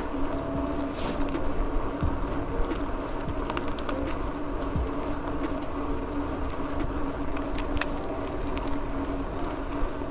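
Steady rolling and wind noise from riding a mountain bike, with wind buffeting the microphone, a low steady hum and a few faint clicks and ticks.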